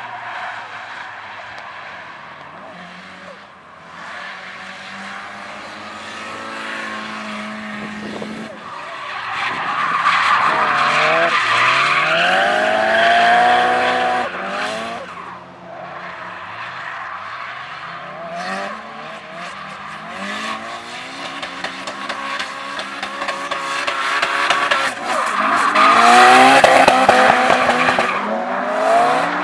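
Nissan Silvia S15 drift car, its engine revving, the pitch rising and falling again and again, while the rear tyres squeal and skid in a smoking drift. It is loudest about ten to fourteen seconds in and again near the end.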